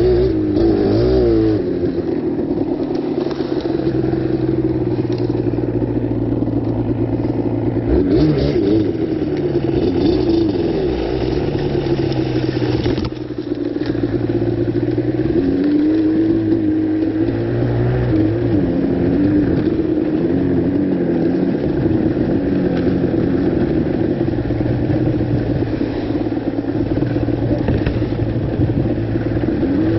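Yamaha Banshee's 350cc twin-cylinder two-stroke engine running as the quad is ridden, its pitch rising and falling with the throttle. The level briefly drops about 13 seconds in.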